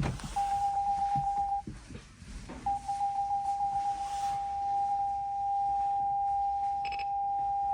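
Nissan Leaf ZE1's electronic warning chime sounding a single mid-pitched tone. It beeps rapidly, about eight beeps a second, stops briefly, then beeps again and settles into one continuous tone. There is a faint click near the end.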